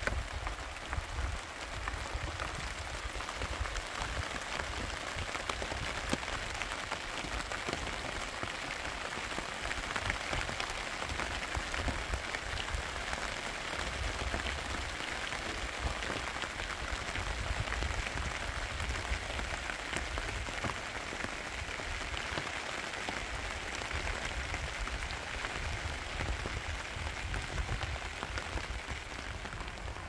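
Steady rain falling on plastic sheeting stretched over a roof, many separate drop hits over an even hiss, with a low rumble underneath.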